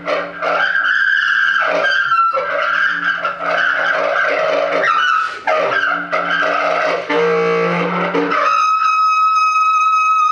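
Solo bass clarinet playing extended-technique multiphonics: a low note and a high, buzzy tone sound together in phrases one to two seconds long, with brief breaks between them. Near the end it settles into one steady high note.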